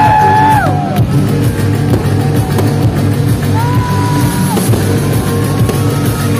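Loud rock music with a melody line holding long notes over a steady beat.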